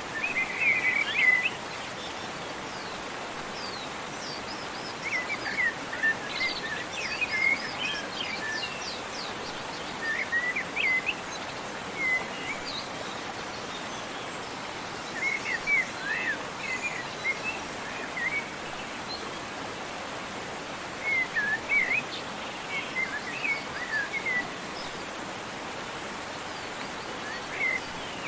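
Steady rushing of falling water with small songbirds chirping over it in short bursts of quick, sliding notes every few seconds.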